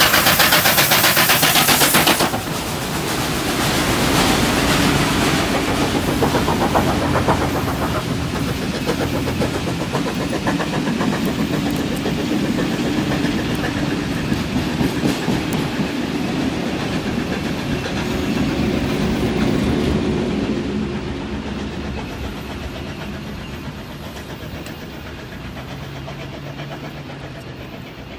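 A 38 class streamlined steam locomotive and its train of carriages passing below. The sound is loudest with a hiss for the first two seconds as the engine goes under. Then the carriages roll by, rumbling and clacking over the rail joints, and the sound fades as the train draws away.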